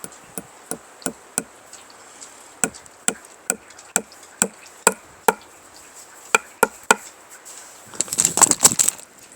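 A hammer tapping a small nail into a puukko knife's wooden handle: light, single blows about two or three a second, with a short pause about six seconds in. A quick rattling clatter follows near the end.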